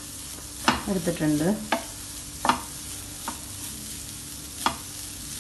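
Spatula stirring grated coconut dry-roasting in a hot pan, with a few sharp taps of the spatula against the pan over a steady low hum.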